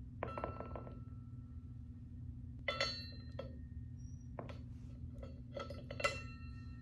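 Metal clinking as a hand tool and fittings knock against the metal frame of flat-pack furniture during assembly: about seven knocks, several leaving a short ringing tone, the loudest about six seconds in. A steady low hum runs underneath.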